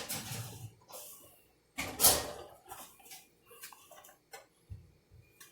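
Covered pan and oven being handled: a sharp click at the start, a loud clattering scrape about two seconds in, then a few light knocks and a low thump.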